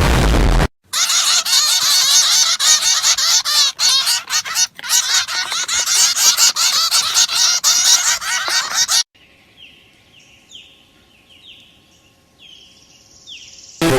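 A flock of birds calling loudly and continuously for about eight seconds. Then comes a quieter stretch of short, repeated falling chirps.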